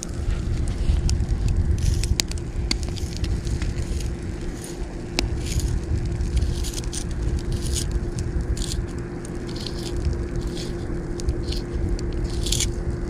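A knife scraping and whittling along a wooden stick in short, repeated strokes, with a campfire crackling close by. A low rumble of wind on the microphone runs underneath.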